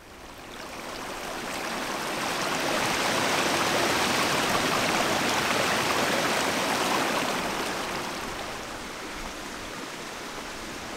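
Creek water rushing. It swells over the first few seconds to a steady rush, then eases off over the last few.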